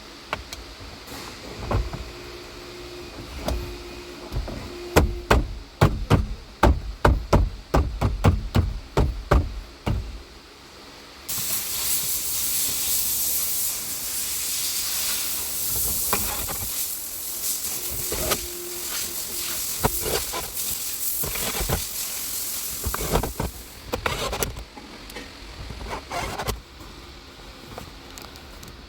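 A quick run of sharp clicks and knocks from tool work on the replacement blower motor in a Nissan X-Trail, with a short low whine now and then. Then the blower fan runs for about twelve seconds with a steady rushing hiss of air, and a few more knocks follow near the end.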